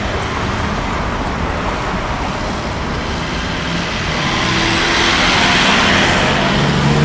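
Boeing 787-9 jet engines at takeoff power, a steady rumble and roar that grows louder about four seconds in as the airliner passes.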